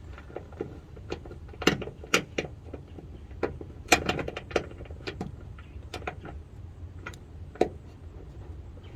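Irregular metallic clicks and clinks of small metal hardware being handled: aluminum hood latch parts and their screws. The sharpest clinks come a little under 2 s in, about 4 s in and near the end.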